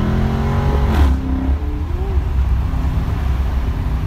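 Dodge Charger Daytona's Hemi V8 with active exhaust accelerating, heard from inside the cabin. The engine note climbs, there is a short sharp noise about a second in, and then the note falls and settles into steadier, quieter running.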